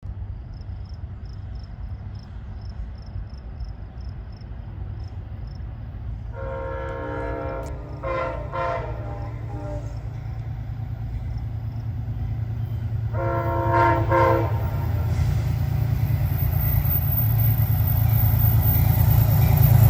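Air horn of an approaching Amtrak GE P32AC-DM diesel locomotive: one long blast, two short ones, then another long blast a few seconds later, over the engine rumble, which grows steadily louder as the train nears.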